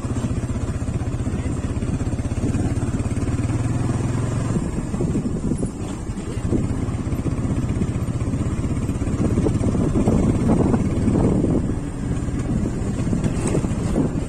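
Single-cylinder engine of a TVS Apache 180 motorcycle running while riding a rough dirt track. The engine note eases off about five seconds in and again near the end, with a louder, rougher stretch around ten seconds in.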